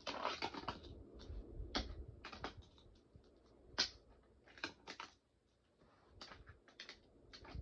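Cheap all-plastic fingerboard with no grip tape clicking and clacking as it is popped, landed and slid on plastic mini-ramps and a rail: irregular sharp taps in small clusters, the loudest single click just before four seconds in.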